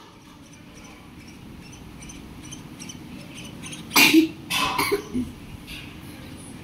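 A pet parrot giving three harsh squawks in quick succession about four seconds in, over faint chirping in the background.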